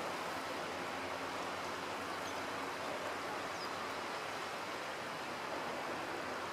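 Steady rushing of a shallow river flowing over its stony bed, with a couple of faint high chirps.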